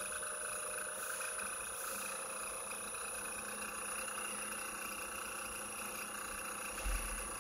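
Electric motor driven by a Mitsubishi FR-E800 frequency inverter, running with a steady electric hum and whine whose pitch edges up in the first few seconds as the drive speed is raised to 60 Hz. A short low bump near the end.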